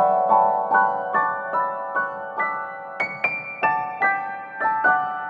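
Background piano music: a slow, gentle melody of single struck notes that climbs to a high note about three seconds in and then steps back down.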